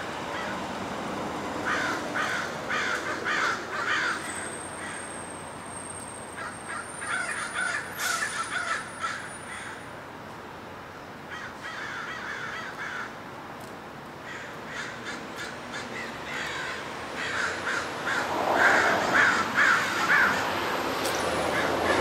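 A flock of American crows cawing: several runs of quick, repeated caws with short pauses between them. Road traffic noise swells near the end.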